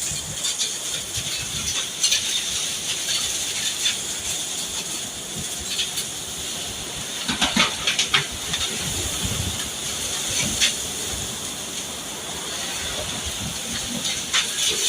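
Tornado winds: a steady rushing hiss, with gusts buffeting the microphone and scattered clicks and knocks throughout, a cluster of them loudest about halfway through.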